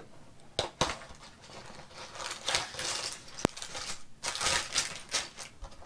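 Crinkling plastic bags of building bricks and cardboard packaging being handled as a kit box is opened, in irregular rustling spells, with a few sharp clicks: one near the start and a loud one a little past the middle.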